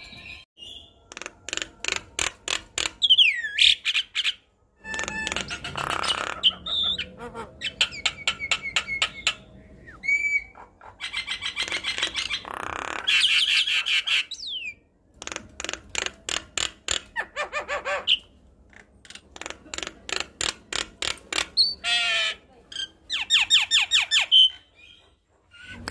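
Javan myna (jalak kebo) singing a varied, chattering song: fast runs of repeated clicking notes, harsh grating bursts and short whistled glides, in phrases broken by brief pauses.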